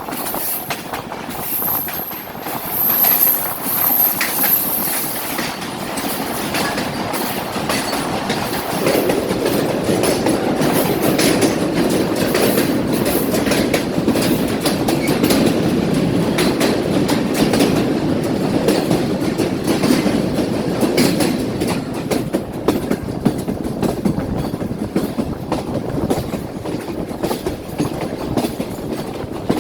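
Awam Express passenger train running on the rails, its wheels clattering over the rail joints with many sharp clicks. A thin high squeal is heard during the first few seconds, and the rumble grows fuller from about nine seconds in.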